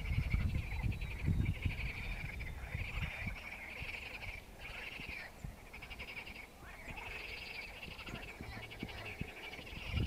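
A chorus of frogs calling from the lake: overlapping rapid, rattling pulsed trills, each lasting about half a second to a second and repeating throughout. Wind rumbles low on the microphone during the first second or so.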